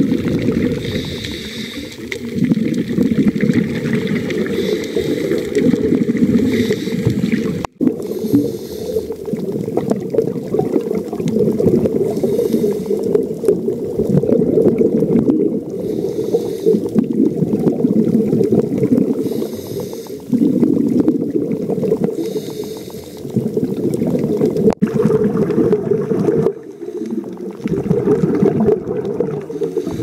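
Underwater audio of scuba diving: a steady low rumble of water with a diver's exhaled bubbles rushing out of the regulator in a hissing burst every three to four seconds. The sound cuts out for an instant twice.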